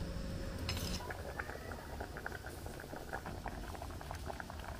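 Thick rice-water vegetable curry (Odia kanji) simmering in a clay pot, with many small irregular pops of bursting bubbles. There is a brief scrape about a second in.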